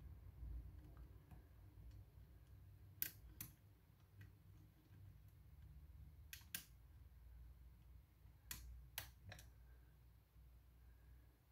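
Faint sharp clicks of a lock pick working the pins inside a pin-tumbler lock cylinder under tension: two about three seconds in, two more about halfway, and three close together near the nine-second mark, over near silence.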